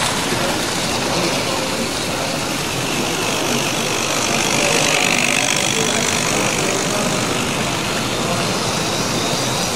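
Tri-ang TT model trains running round the layout close by: a steady whir of small electric motors and wheels on the rails, with a murmur of voices behind.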